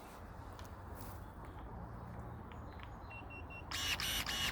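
Cordless electric pruning shears: three short beeps, then near the end about four quick motor-driven snaps of the blade, each a brief whirr.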